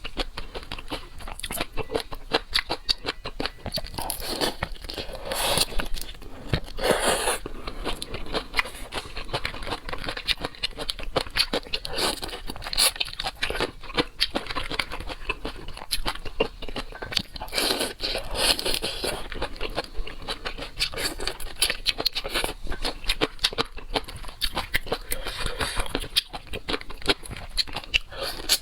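Shell-on seafood being eaten: continual crunching, biting and chewing, a dense run of irregular small clicks and crackles, with louder stretches a few times.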